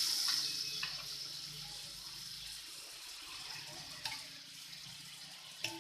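Butter sizzling on a hot chapati tawa, a hiss that slowly dies down as it melts, with a few light clicks along the way.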